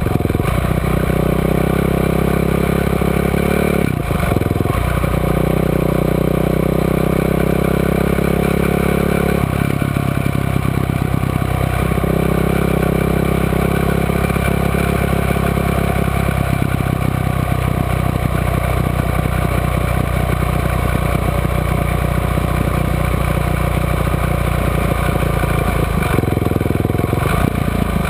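Quad bike (ATV) engine running under way, its pitch climbing slowly and then dropping at a gear change about four seconds in, again about ten seconds in, and once more near the end.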